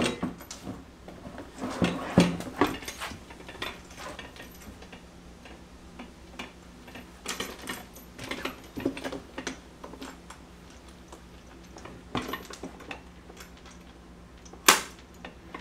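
Hard plastic cart bed and its bolts and washers being handled and shifted: scattered knocks, scrapes and light clicks, with one sharp knock near the end.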